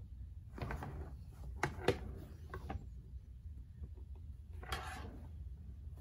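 Hands handling and turning a vintage Coach leather handbag: the leather rubs and rustles, with a couple of sharp clicks and knocks about two seconds in and another rustle near the end.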